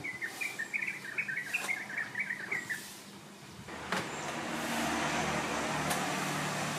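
A small bird chirping a quick run of short high notes for about three seconds. After a click about four seconds in, a louder steady rushing noise with a low hum sets in and carries on.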